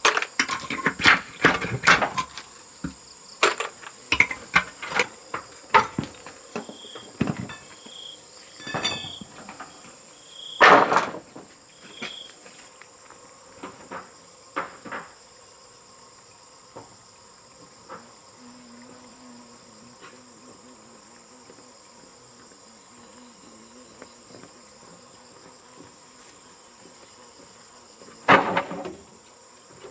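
Steady high chirring of crickets, with irregular knocks and thuds of hand work, dense in the first half, then one more loud knock near the end. A few short high chirps sound in between.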